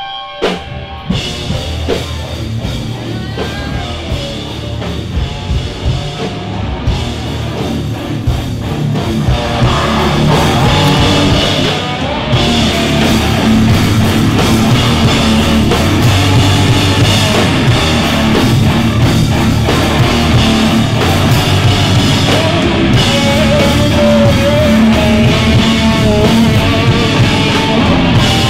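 Post-hardcore rock band playing live on drum kit and electric guitars, starting with scattered drum hits over guitar and swelling to the full band, louder, about ten seconds in.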